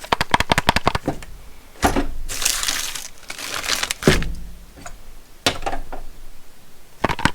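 M18 battery pack rattling in the loose battery mount of a Milwaukee M18 Fuel oscillating multi-tool as the tool is shaken by hand: rapid clicking and clatter, with heavier knocks about two, four and five and a half seconds in. The rattle is the sign of a poor battery fit, which the owner calls very, very loose.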